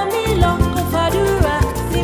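Background music with a steady beat, a bass line and a melody that slides in pitch.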